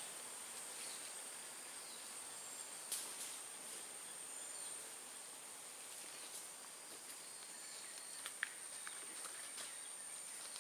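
Faint forest ambience: a steady high-pitched insect drone, with a few scattered faint ticks and snaps.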